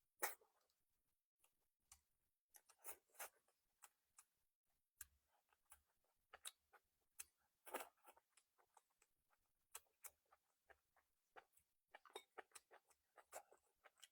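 Faint eating sounds close to the microphone: chewing and small mouth clicks and smacks, coming irregularly, several every second.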